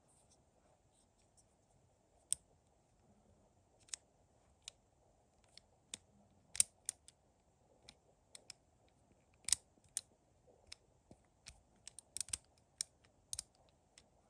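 Plastic LEGO Technic parts clicking and snapping in a stepper shifter mechanism: about twenty sharp clicks at irregular spacing, some in quick pairs, the loudest about six and a half and nine and a half seconds in.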